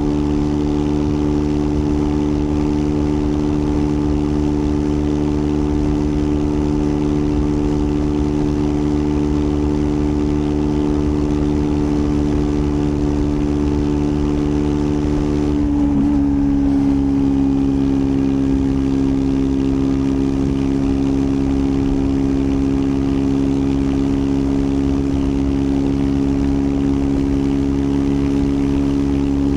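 Triumph Scrambler 400 X's single-cylinder engine running at steady revs under way, a loud even engine note. About halfway through the note breaks briefly and then settles at a slightly lower pitch for the rest.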